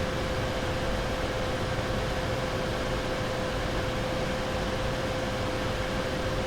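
Nvidia GeForce RTX 2070 Super graphics card fans running at a steady speed under manual fan control: an even rushing noise with one constant tone, not revving up and down.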